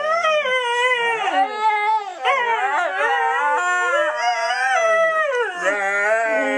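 Dog howling: long, continuous howls that waver and slide up and down in pitch.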